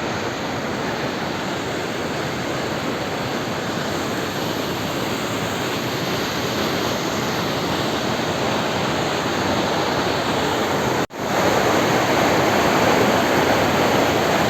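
Small waterfall pouring with force over a rock ledge: a steady rush of falling water. About eleven seconds in it breaks off for an instant and comes back a little louder.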